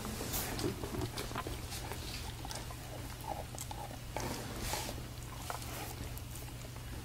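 Faint animal noises from a Bernese mountain dog puppy: a few soft breathy sounds and scattered small clicks over a steady low hum.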